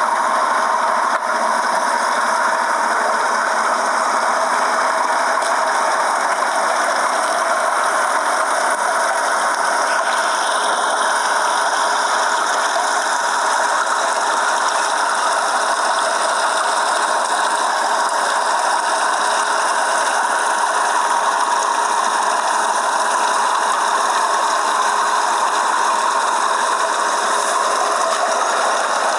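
Machinery of an essential-oil distillation plant running steadily: a continuous, even mechanical noise with no breaks.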